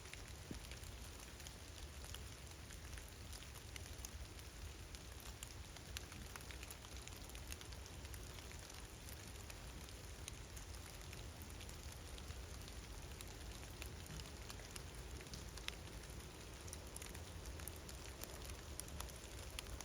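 Steady rain falling, with many small drop ticks scattered through it.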